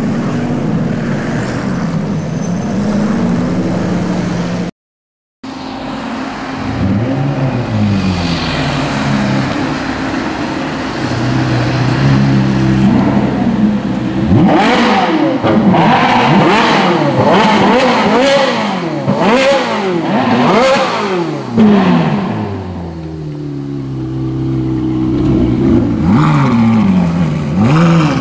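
Ferrari 458 Italia's naturally aspirated V8 through an aftermarket Novitec exhaust, revved over and over, the pitch rising and falling with each blip. In the middle comes a quick run of sharp blips with loud exhaust cracks, and the sound briefly cuts out near five seconds in.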